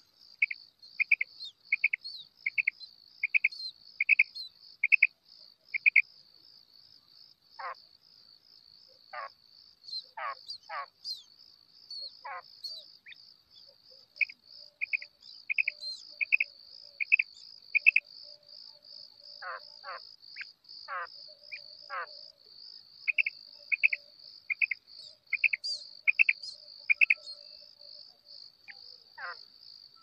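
Female common quail (batair) calling: three bouts of short, evenly spaced notes, about one and a half a second, with a few short falling calls in the gaps between bouts. A steady, pulsing high trill runs underneath throughout.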